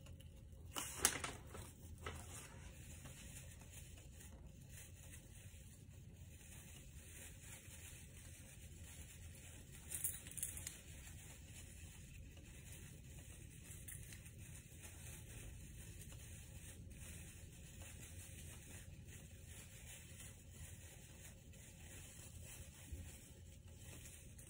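Faint rustling and crinkling of things being handled, with a brief louder rustle about a second in and another about ten seconds in.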